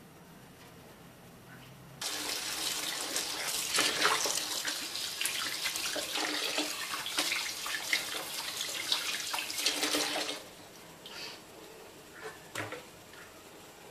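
Tap water running into a stainless-steel kitchen sink while a whole silver catfish is rinsed and rubbed by hand under the stream. The water starts about two seconds in and stops about ten seconds in, followed by a few small splashes and handling sounds.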